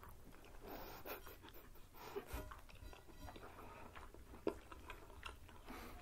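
Quiet chewing and mouth clicks of people eating pismaniye, the soft Turkish floss candy, and noodles, with scattered small smacks and one sharper click about four and a half seconds in.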